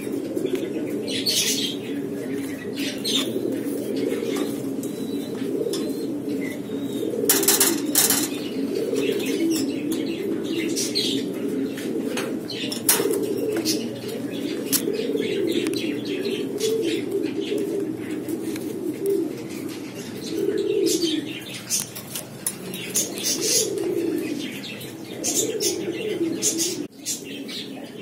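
Lahore pigeons cooing steadily in a low wavering drone. Wing flaps and claps cut through it repeatedly, a pair of the loudest about a quarter of the way in and another cluster near the end.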